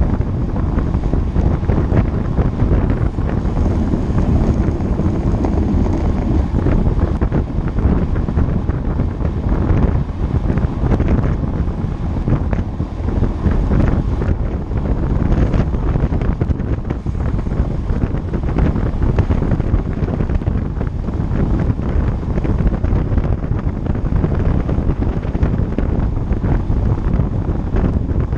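Wind buffeting the microphone of a camera on a moving road bike: a loud, steady rush of noise, heaviest in the low range, with no letup.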